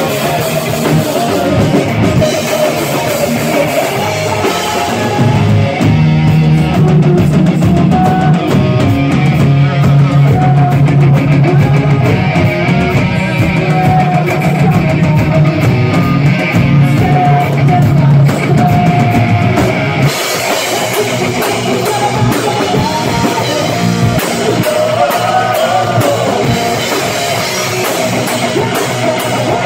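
Live metal band playing loud, with distorted electric guitars, bass and a drum kit. About twenty seconds in the song changes section: the heavy low riff drops away and the cymbals come through brighter.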